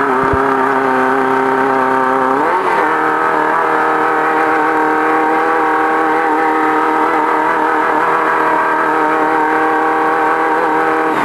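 Off-road race car's engine running hard at steady revs; its note climbs to a higher, steady pitch about two and a half seconds in.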